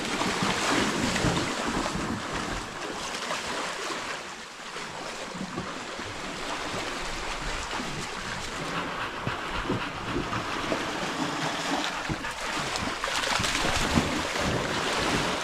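Small waves washing onto a sandy shore among rocks, with wind buffeting the microphone. Near the end, a dog splashes through the shallow water.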